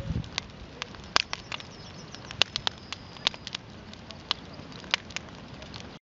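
Wood bonfire crackling, with irregular sharp pops over a steady hiss. It cuts off abruptly near the end.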